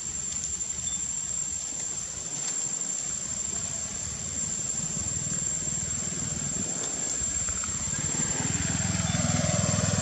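A motor vehicle engine running, a steady low rumble that grows louder in the last two seconds, as when the vehicle draws nearer. A steady thin high-pitched tone runs through it.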